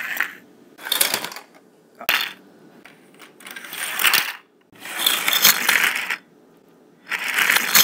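Small plastic Disney Cars slider pieces and Micro Drifters toy cars skidding along a plastic race track, heard as about five short runs of hissy scraping a second or so apart.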